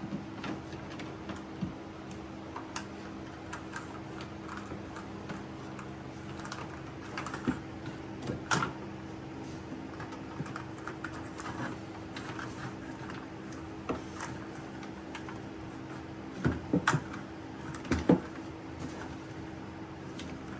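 Scattered light clicks and taps, with a few louder knocks around eight seconds in and again near the end, over a steady low hum.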